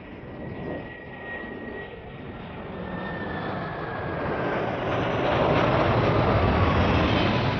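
Jet airliner passing low overhead. Its engine noise builds steadily to a peak near the end, with a faint whine that slowly falls in pitch as it goes by.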